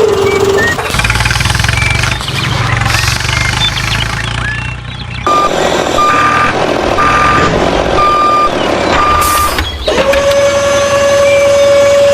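Heavy vehicle's engine rumbling, then a run of reversing beeps, about one and a half a second, over a steady hum that drops in pitch at the start and comes back near the end.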